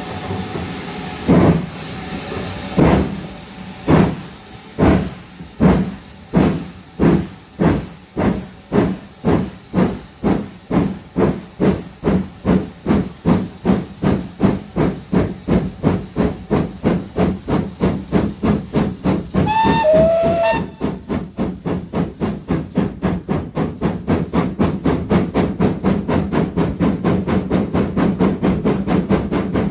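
Steam locomotive pulling away from a station. Its exhaust chuffs start slow and heavy, about one every second and a half, and quicken steadily into a rapid beat as it gathers speed, over a hiss of steam. A short whistle sounds about two-thirds of the way through.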